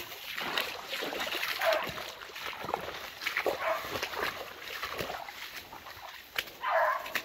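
Hunting dog barking three times, spaced a couple of seconds apart, with the last bark longer, over the rustle of brush and leaves as someone pushes through.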